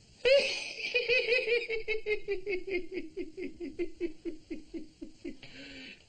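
A man laughing: a long run of about twenty short "ha" pulses, about four a second, that starts loud, then slides slowly lower in pitch and fades.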